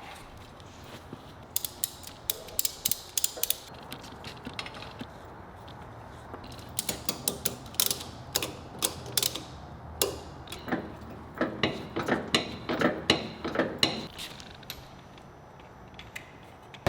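Irregular sharp clicks and light taps in short clusters: hand tools and metal parts being handled while the cut-off frame section is measured.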